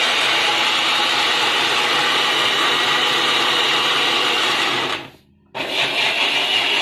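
Baltra electric mixer grinder running with a small jar, blending boiled carrot and water into a puree. The motor stops for about half a second about five seconds in, then starts up again.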